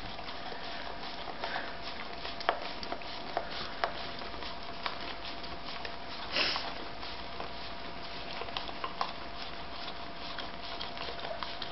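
Standard schnauzer licking yoghurt out of a small plastic pot: scattered soft clicks and taps of tongue and muzzle against the plastic, with one louder short breathy noise about halfway through.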